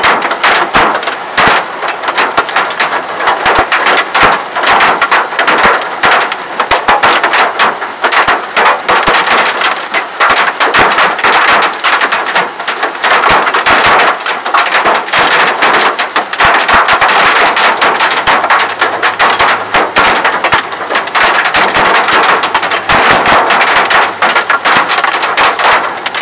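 Hail pelting a car's roof and windows, a dense, continuous clatter of rapid hard impacts heard from inside the car.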